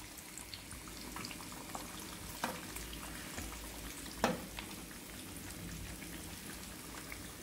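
Batter-coated chicken deep-frying in oil: a steady low sizzle with scattered crackles, and two sharper light clicks about two and a half and four seconds in.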